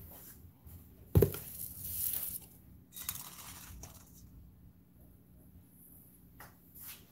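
Kitchen handling sounds: a sharp knock about a second in, then rustling and crinkling, and a light clink with a short ring around three seconds.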